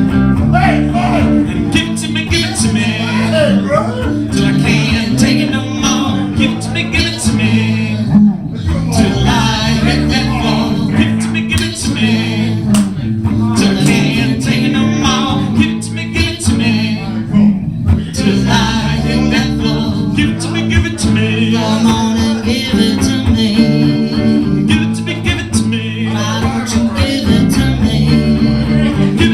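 Live acoustic guitar music, played continuously.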